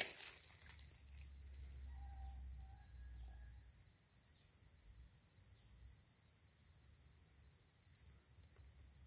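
An insect, of the cricket or cicada kind, trilling in one steady, high, unbroken tone, faint, under a low rumble of wind or camera handling.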